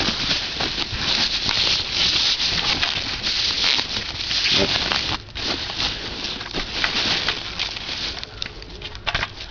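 Plastic packaging crinkling and rustling as a packed hopper is unwrapped by hand, dense for about five seconds, then sparser and quieter with a few sharp crackles near the end.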